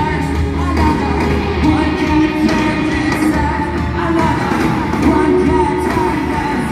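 Rock band playing a loud live noise jam through an arena sound system, with singing over the top, heard from far back in the stands.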